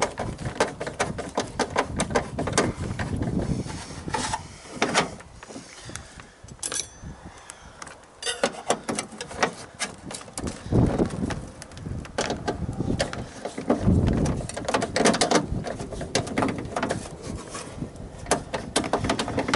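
Hand ratchet clicking in quick runs on a car door's window-regulator bolt, with tool knocks against the door's metal inner panel. The bolt is stiff; the mechanic takes it for cross-threaded.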